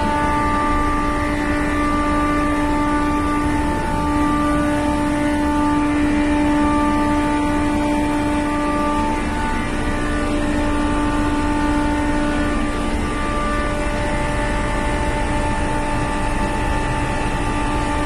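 Electric-motor-driven pumps running: a steady machinery hum with a constant whine over it.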